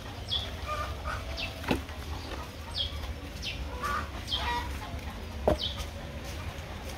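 Birds calling in short, falling chirps again and again, with two sharp knocks a few seconds apart.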